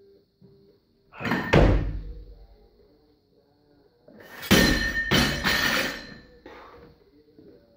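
Loaded barbell with bumper plates in a snatch: a sharp clank and heavy thud about a second and a half in as the bar is pulled up and caught overhead with the feet stamping down, then about four and a half seconds in the bar is dropped from overhead and crashes onto the floor, bouncing and clattering several times before settling.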